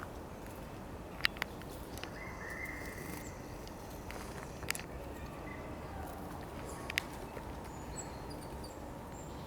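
Quiet forest ambience with faint high bird chirps and a handful of short, sharp clicks.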